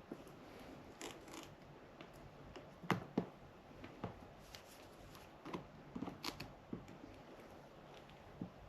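Side cutters snipping away a heat-shrink connector boot in small bites: faint, irregular clicks and snips, about ten in all.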